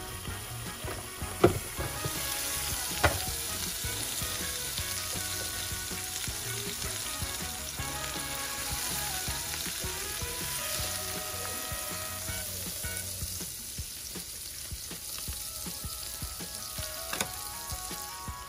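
Food sizzling on the hot ribbed plates of a George Foreman Lean Mean Fat Grilling Machine contact grill: a tortilla wrap grilling with a steady crackling hiss. Two sharp knocks come about a second and a half and three seconds in.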